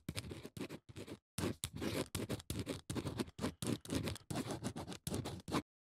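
Marker writing strokes: quick, scratchy scribbling in many short strokes with brief gaps, cutting off suddenly near the end.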